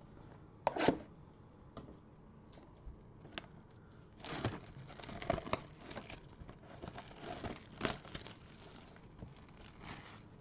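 Cardboard trading-card boxes being handled and pulled off a stacked display by a gloved hand: a sharp knock about a second in, then a few seconds of crinkling, rustling and scraping handling noise.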